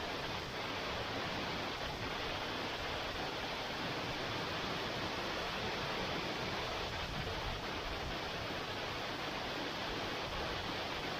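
Uchan-Su waterfall rushing in a steady, unbroken roar of falling water, running full with snowmelt.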